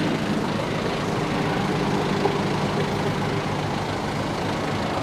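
Heavy truck's diesel engine idling steadily.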